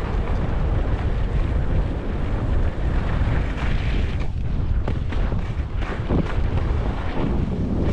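Wind buffeting the microphone of a skier's camera during a downhill run, a steady low rumble, with surges of hiss as the skis scrape over packed snow in turns.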